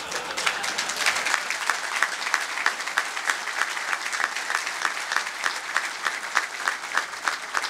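Audience applauding: many people clapping at once, with one nearby pair of hands standing out in a steady beat of about three claps a second.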